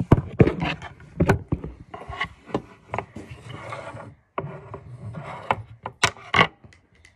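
Close handling noise: rustling and rubbing with a run of sharp plastic knocks and clicks from the mallets and tray of a toy ice-breaking game being moved about, with a brief pause a little past halfway.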